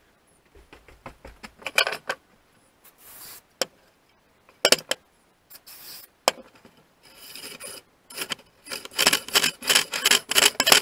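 Rubbing and scraping from hand work on the old chainsaw's parts. A few scattered strokes at first, then a quick run of back-and-forth strokes, about three a second, in the last few seconds.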